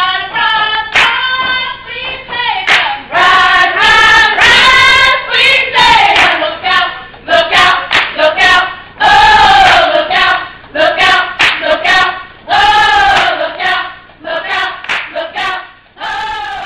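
A group of voices singing together, unaccompanied, with sharp hand claps through the song.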